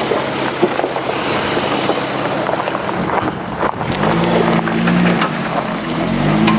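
Off-road 4x4 truck engine running under a steady rushing noise; from about four seconds in its note rises and falls as the throttle is worked.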